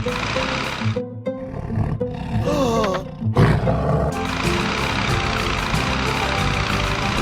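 Background music, with a short wavering, sliding sound effect about two and a half seconds in.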